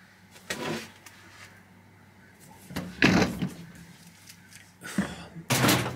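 Three short knocks and scrapes of objects being handled and set down, the loudest near the end.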